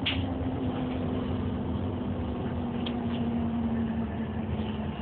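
Optare Solo single-deck bus running, heard from inside the passenger saloon: a steady engine and road drone with a humming tone that falls slightly in pitch and fades about four seconds in. There are a couple of brief rattles.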